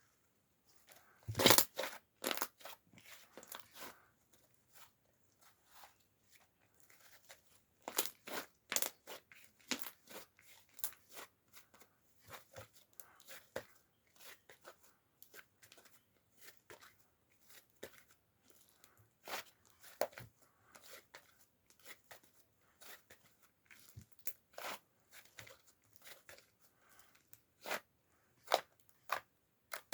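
Irregular crackling and crinkling handling noises, sharp little clicks and crunches, with a louder burst about a second and a half in.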